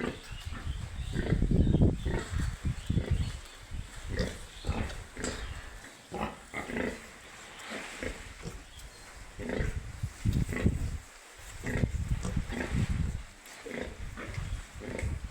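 Piglets grunting, many short irregular calls one after another, loudest about one to two seconds in.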